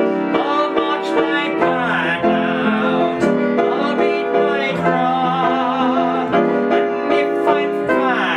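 A man singing with vibrato to his own upright piano accompaniment, the piano playing steady chords under the vocal line.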